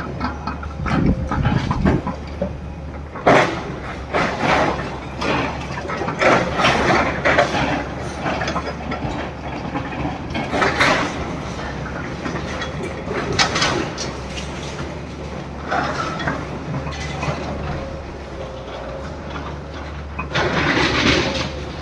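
Demolition machinery at work: a steady engine drone with repeated irregular crashing and scraping of debris.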